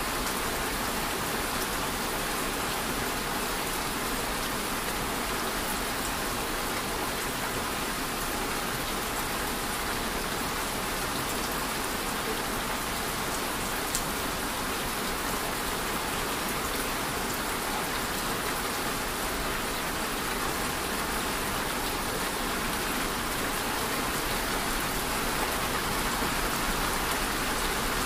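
Steady rain falling, a dense even hiss of drops with no change in strength, and a single small click about halfway through.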